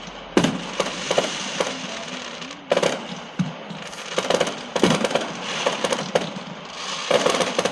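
Fireworks going off in a dense, irregular run of sharp cracks and bangs, several at once, over a steady crackling haze.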